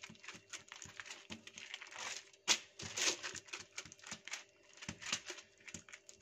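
A palm pressing and smoothing msemen dough flat on a sheet of kitchen paper. The paper rustles and crinkles under the hand in quick, irregular strokes, with one sharper scrape about halfway through.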